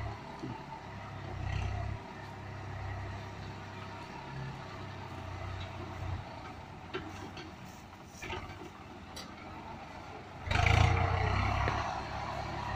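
Swaraj 744 tractor's three-cylinder diesel engine running steadily as it pulls a trailer heavily loaded with sugar cane, with the engine noise surging louder near the end.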